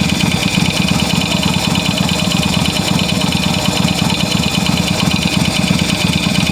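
Yamaha Virago 250's V-twin engine idling steadily, with a rapid, even ticking over the engine note. It is a noise that crept in gradually, which the owner thinks is coming from one of the pistons.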